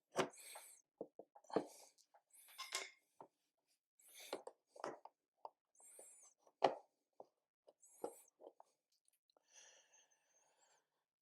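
Faint, irregular scrapes and taps of a tool working on a plastic car bumper: about a dozen short sounds with gaps between them, some with a thin squeak.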